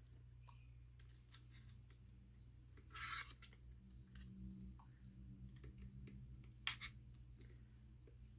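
Faint scraping and clicking of a plastic pry card working under a glued metal plate inside a laptop: a short scrape about three seconds in and a sharp click near seven seconds, over a low steady hum.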